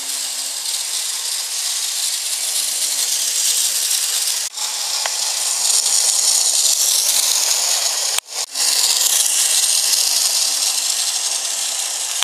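Bachmann model trolley running at top speed on its track: its small electric motor and wheels make a steady, high-pitched whir. The sound cuts out briefly twice, about four and eight seconds in.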